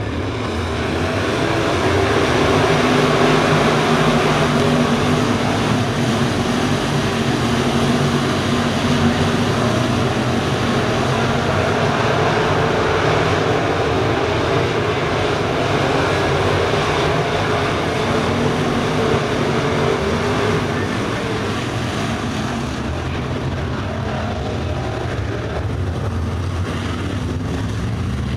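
A field of crate-engine V8 dirt late model race cars running together at racing speed around a dirt oval. The engine sound swells about two seconds in as the pack gets going and eases a little after about twenty seconds.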